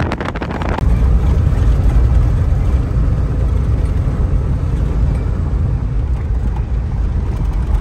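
Wind buffeting the microphone for about the first second, then the steady low rumble of a van driving, heard from inside the cabin.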